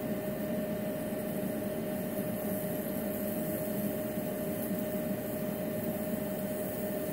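Ultrasonic cavitation machine running with its handpieces in water: a steady electrical hum with one constant mid-high tone over a hiss.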